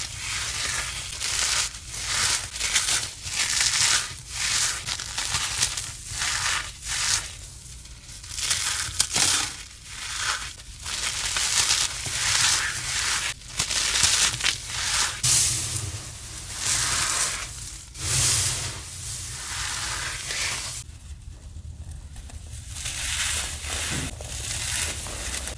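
Dry, crumbly powder blocks crushed by hand: a run of crackling crunches, one after another with short gaps, softer over the last few seconds.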